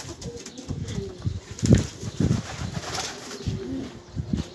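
Breeding pigeons cooing, with a few louder low thumps mixed in.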